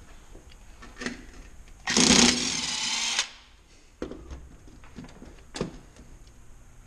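A handheld power tool runs in one burst of about a second and a half, with a steady whine. A few light metallic clanks of tools or parts being handled come before and after it.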